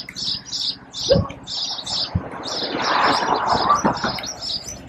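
Small birds chirping continuously: a steady run of short, high chirps, three or four a second, with a broader swell of noise rising and fading near the middle.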